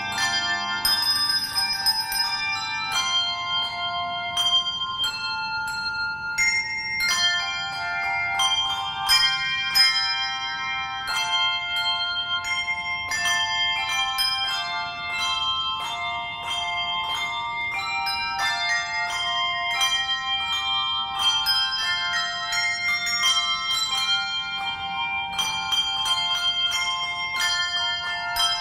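Handbell choir playing: brass handbells struck in turn, ringing out overlapping sustained notes in a melody with chords. A burst of rapid ringing comes about a second in.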